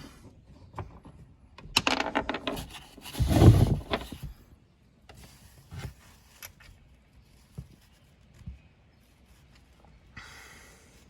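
Hand tools working the small bolts of a jet ski's oil-filter cap as they are threaded in and tightened: scattered clicks and rubbing, a quick run of clicks about two seconds in and a louder knock about three and a half seconds in.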